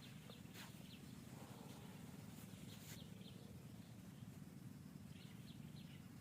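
Quiet outdoor ambience: a steady low hum with a few short, faint high chirps scattered through it.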